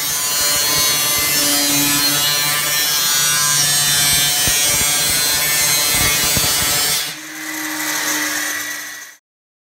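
A grinder with a cut-off disc is cutting through the metal wall of an imploded vacuum chamber, a loud, steady high hiss over a motor hum. About seven seconds in it drops and carries on with a slightly different tone, then stops suddenly near the end.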